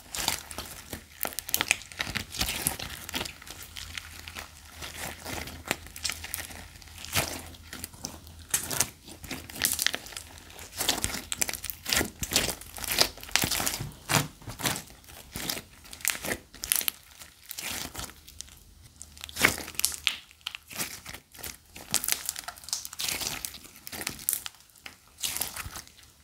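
Slime being kneaded and stretched by hand with soap-rose petals softening into it: a dense, irregular run of wet crackles and clicks as the slime folds and pulls apart.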